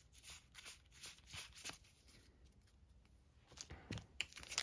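Faint rustling and soft clicks of a small stack of trading cards being handled, going almost quiet in the middle, with a few sharper clicks near the end.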